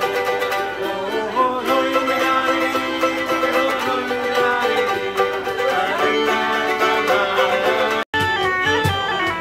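Live folk session: a fiddle playing a lively tune over strummed and plucked small string instruments. About a second before the end the music cuts off abruptly to a different tune.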